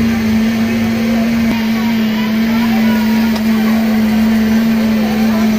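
A loud, steady machine hum held at one low pitch, over background noise.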